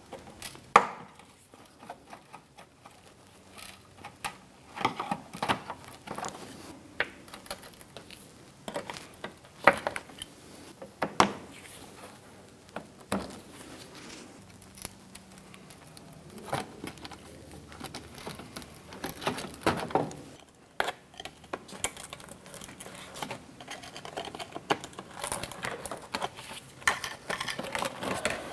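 Plastic push-pin fasteners being pried out of a plastic under-engine splash shield with a pick and a trim tool: irregular plastic clicks, snaps and scraping, with some rustling as the shield is handled.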